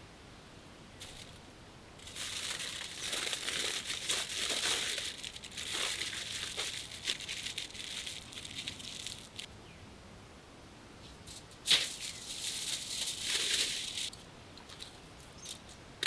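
Crinkling and rustling of handled material in two long stretches, with a sharp click at the start of the second.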